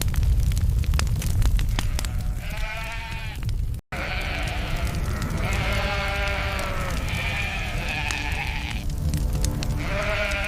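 Repeated high, bleating animal cries, one drawn-out call after another, over a low rumble with scattered clicks. The sound breaks off abruptly just before 4 seconds in and resumes straight away.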